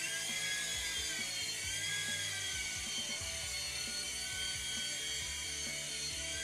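Micro 3.5-channel RC helicopter's electric motor and rotors whining at a steady high pitch as it hovers. The pitch dips and rises a little as the throttle is worked.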